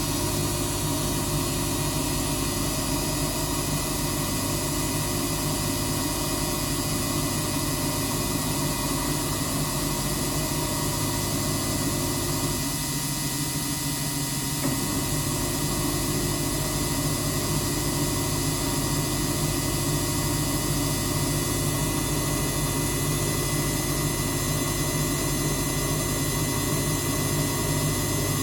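Samsung front-loading washing machine running its spin, the motor and drum giving a steady whine made of several held tones over a hum, on an 800 rpm spin affected by suds lock. About halfway through, the deep rumble drops out for a couple of seconds, then returns.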